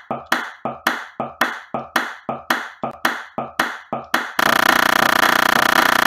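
A recorded hand clap looped in playback, repeating about three to four times a second. About four seconds in, the loop is cut to a tiny slice and the repeats run together into a steady, loud pitched buzz.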